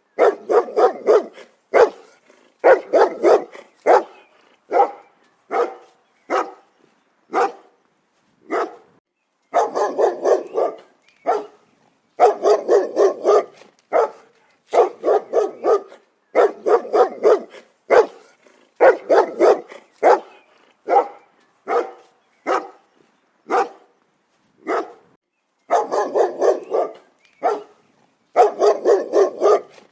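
A dog barking loudly over and over, in quick volleys of several barks separated by short pauses, with some single barks between them.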